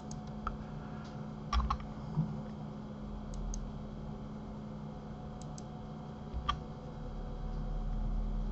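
Scattered clicks of a computer mouse and keyboard, some single and some in quick pairs, over a steady low hum.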